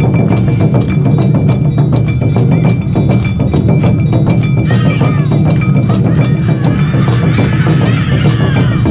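Live Awa Odori hayashi band: taiko drums beating a fast, driving rhythm with a small metal gong (kane) ringing steadily over it. Higher pitched lines slide up and down above the beat about five seconds in and again near the end.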